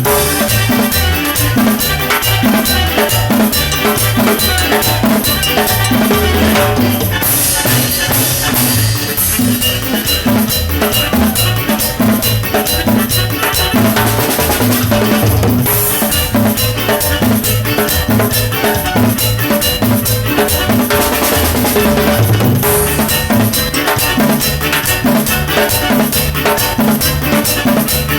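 Band music with a drum kit, percussion and bass keeping a steady beat.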